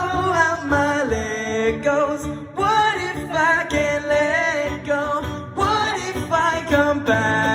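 Live singing of a pop song with a guitar playing underneath. The sung notes are held and bend in pitch.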